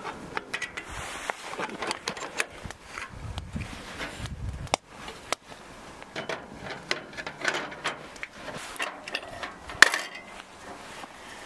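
Irregular light clicks and knocks of small objects being handled, with one sharper knock near the end. A low rumble of wind comes and goes in the middle.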